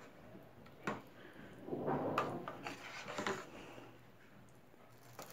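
A plastic spoon stirring thick tomato-and-cream sauce in an aluminium pot: soft scraping with three light knocks against the pot, about a second apart.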